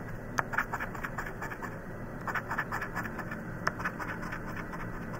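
Scratch-off lottery ticket being scratched: quick rasping strokes across the coating in short bursts, with a couple of sharper clicks.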